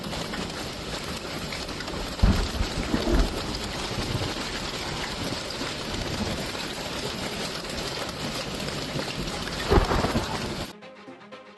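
Heavy storm downpour pouring down steadily, with low rumbles of thunder about two and three seconds in and again near the end. It cuts off abruptly to electronic music shortly before the end.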